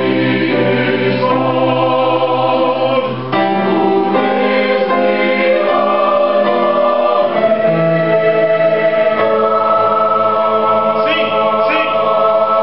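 Chamber choir singing slow, sustained chords that shift every second or two, with a short break for a new phrase about three seconds in.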